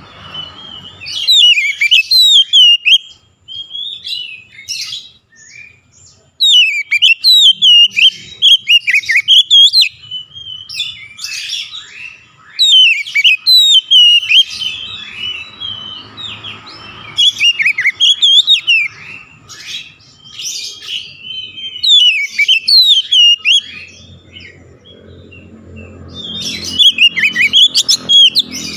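Oriental magpie-robin (kacer) singing loudly: phrases of quick rising and falling whistles and chatters, each a second or two long, repeated every few seconds.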